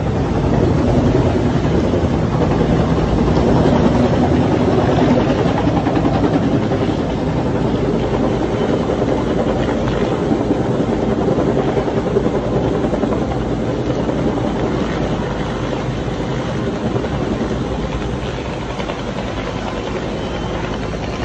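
Firefighting helicopter hovering low, its rotor and turbine running steadily. The sound is loudest in the first few seconds and eases slightly toward the end.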